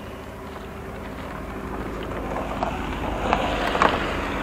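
A minibus driving past at close range, its engine and tyre noise growing louder and peaking near the end, with a couple of sharp ticks at its closest.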